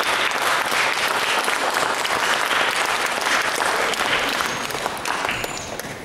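Audience applauding, a steady dense clapping that dies away over the last second or so.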